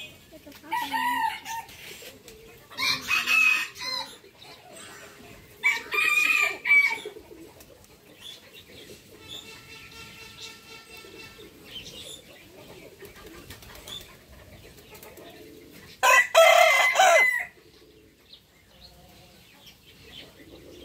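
Roosters crowing: four loud crows, three within the first seven seconds and one about sixteen seconds in, with a fainter, longer call between them.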